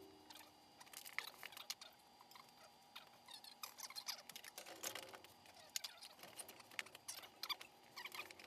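Faint, irregular light clicks and taps, scattered through the whole stretch, with no steady sound beneath them.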